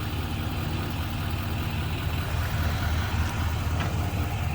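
Diesel pickup engine, a GMC Sierra 2500's 6.6-litre Duramax V8, idling steadily with an even low rumble.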